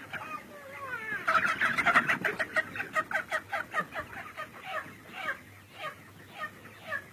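Many chickens clucking together, a dense burst of overlapping calls about a second in that thins out to scattered calls toward the end.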